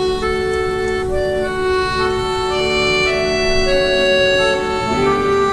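Accordion playing a slow legato melody over a held low note, each note joined smoothly to the next with bellows louré articulation.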